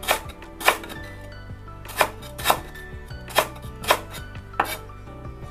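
Knife chopping on a cutting board: about seven sharp chops, mostly in pairs about half a second apart.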